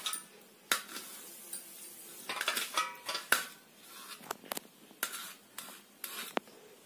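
Small knife chopping soft tender coconut flesh on a stainless steel plate: irregular taps and short scrapes of the blade against the metal, with a quick run of them midway.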